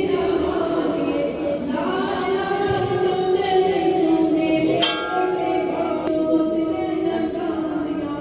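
Devotional singing with long held notes plays steadily. Just before five seconds in, a temple bell is struck once and rings for about a second over it.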